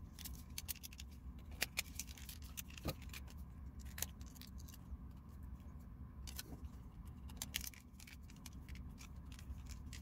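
Light, irregular clicks and taps of a TV remote control's plastic and metal casing parts being handled and pressed together, over a faint steady low hum.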